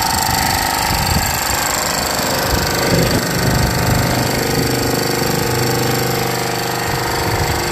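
Hydraulic soil-brick press running, its electric motor and hydraulic pump giving a steady hum over a fast mechanical rattle.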